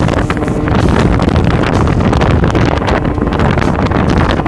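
Loud wind buffeting the microphone on a 1985 Bass Tracker aluminium bass boat under way, with the boat's motor and hull-on-water noise underneath.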